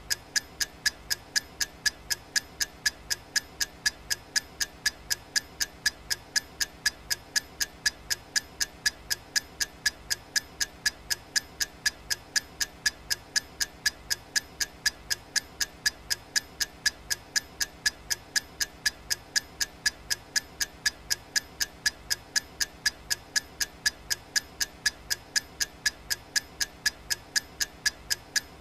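Clock-style ticking of a countdown timer: sharp, evenly spaced ticks, a few a second, going on without a break.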